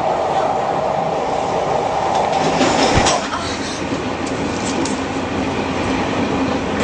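Metro train running, heard from inside the carriage: a steady rumble of wheels on the track, with one sharp knock about three seconds in, after which the running noise drops a little.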